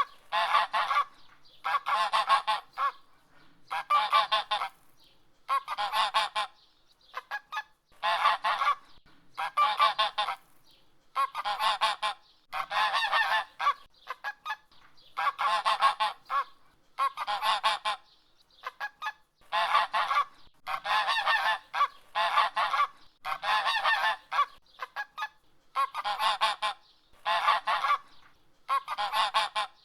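Domestic goose honking over and over, about one honk a second, with a few short gaps between runs of calls.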